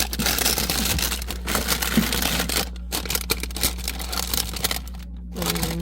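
Packaging crinkling and rustling as it is handled, irregular and continuous apart from a couple of brief pauses.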